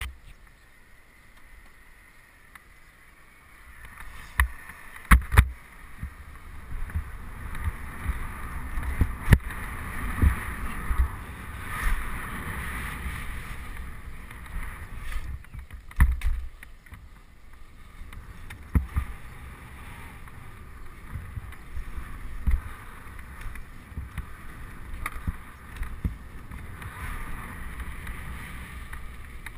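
Mountain bike ridden over concrete skatepark ramps: a steady rumble of knobbly tyres rolling on concrete with wind noise on the microphone, broken by several sharp knocks and clatters as the bike lands and rattles. It is quieter for the first few seconds, then louder.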